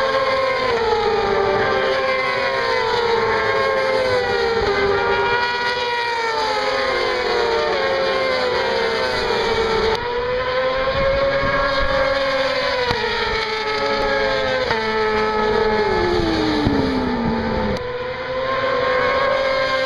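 Several racing motorcycles at high revs along the track, their engine notes overlapping and rising and falling through gear changes. Near the end one engine note drops steeply in pitch.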